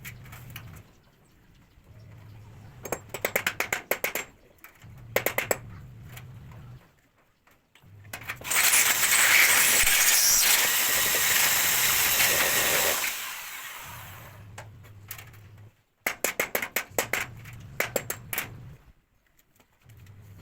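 Power drill boring a hole for an expansion anchor bolt, running for about five seconds mid-way, with short bursts of rapid clicking before and after it as the anchor is fitted.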